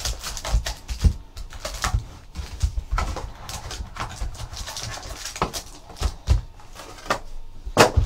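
Foil trading-card packs crinkling and clicking as they are lifted out of a cardboard box and stacked on a table, with irregular taps and soft thumps and one sharper knock near the end.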